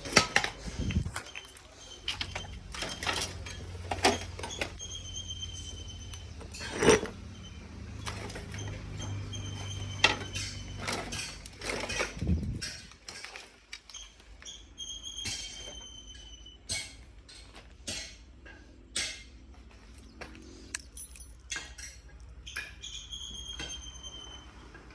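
Irregular clinks and knocks of hard objects being handled, a few loud, with short high steady tones that recur several times and a low hum in the first half that stops about twelve seconds in.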